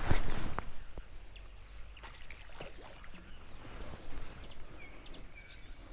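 Swish of a fishing rod being cast overhead, loudest in the first half-second, followed by a few faint clicks. Birds chirp in the background.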